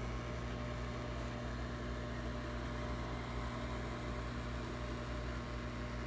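Kodak 4600 Carousel slide projector running with its cooling fan on: a steady hum.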